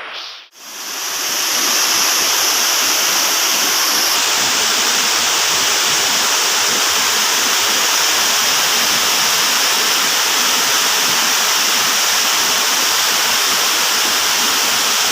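Steady, loud rush of flood-swollen river water pouring along.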